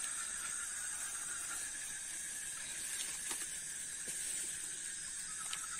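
Steady chorus of night insects: a high continuous trill over a lower, evenly pulsing trill, with a couple of faint clicks.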